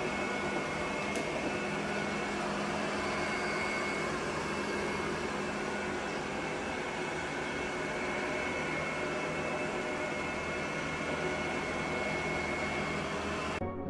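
Robot vacuum cleaner running with a steady whir and a faint high whine, cutting off near the end.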